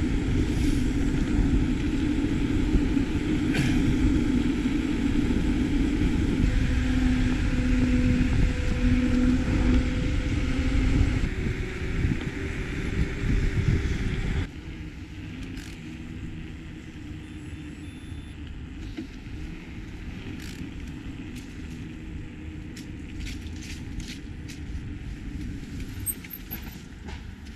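Wind rushing over the microphone and mountain-bike tyres rolling on asphalt during a fast downhill on an electric mountain bike. About fourteen seconds in it drops suddenly to a much quieter, steady outdoor background, with a few light clicks near the end.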